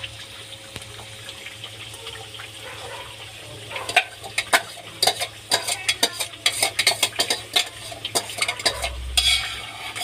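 Onion-tomato masala paste sizzling faintly in hot oil in a steel kadai. From about four seconds in, a long metal spoon scrapes and clinks in quick, irregular knocks against the container and the pan's rim as the last of the paste is scraped out.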